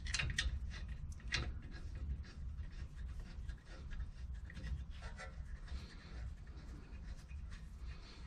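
Irregular small metallic clicks and scrapes of caliper bolts being handled and started by hand into a truck's front brake caliper, over a low steady hum.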